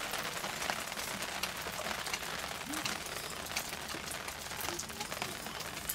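Rain falling, many small drops ticking on a surface over a steady hiss.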